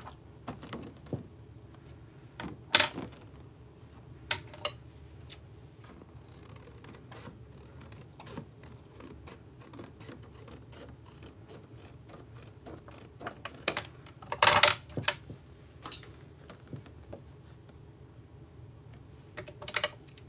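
Thin clear acetate plastic sheet being handled and cut to a circle around a cardstock ring: scattered small clicks and crinkles, with a sharp crackle about three seconds in and a longer, louder crackle about fourteen seconds in.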